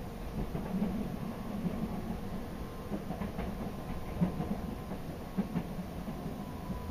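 Toden Arakawa Line streetcar running along its track, heard from inside the car: a steady low rumble of wheels on rail with a few scattered clicks.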